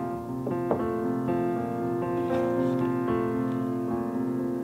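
Background piano music, with slow, sustained notes.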